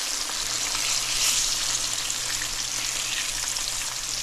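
Battered snapper fillets deep-frying in hot oil in a cast-iron skillet: a steady sizzle.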